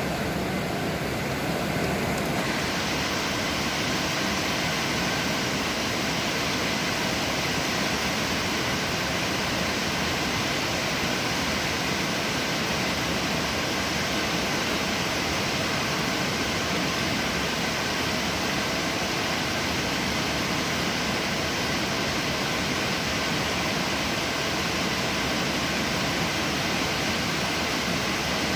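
Heavy rain falling steadily, an even hiss with no pauses; it turns a little brighter about two seconds in.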